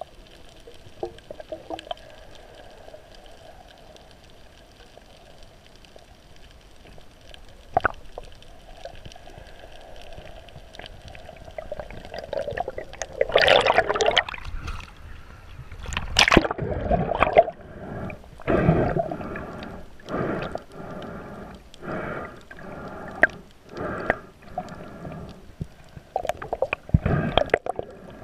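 Underwater sound heard through a GoPro 4's waterproof housing: a muffled low wash of water, then about 13 seconds in a loud rush of air bubbles, followed by gurgling water pulses about once a second.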